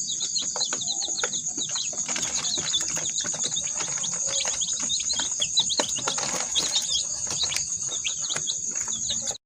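Many birds chirping in quick short notes over a steady high-pitched drone, with scattered rustling and wing-flapping.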